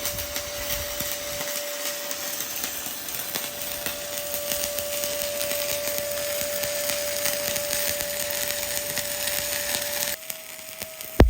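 Stick-welding (SMAW) arc crackling steadily as a bead is run, until the arc breaks off about ten seconds in. A steady hum runs underneath.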